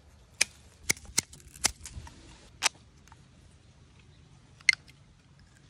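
Small hand shears snipping: several sharp, quick cuts through a green plant stem, then one louder snip through a plastic drinking straw near the end.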